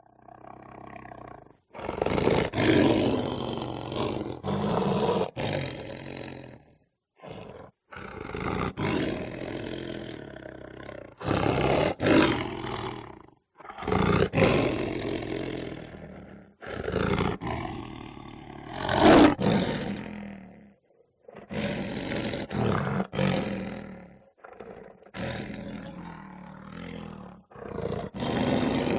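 A lion growling and giving light roars: a series of about ten rough bouts, each one to three seconds long with short gaps between, the loudest about two-thirds of the way through.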